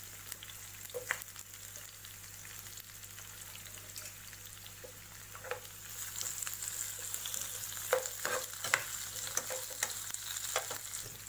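Cubed onion and capsicum sizzling in hot oil in a nonstick pan, with a steel spoon knocking and scraping against the pan as the vegetables are stirred, more busily in the second half.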